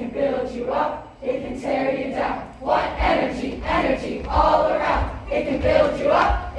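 A group of young voices chanting and shouting together in unison, in rhythmic phrases about once a second, with low thumps from the middle on.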